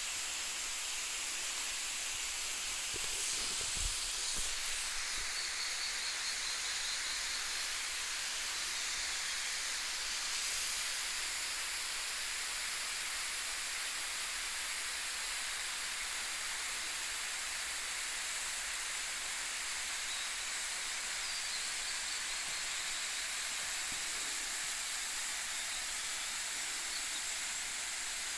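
Waterfall rushing: a steady, even hiss of falling water, strongest in the high range. A soft knock about four seconds in.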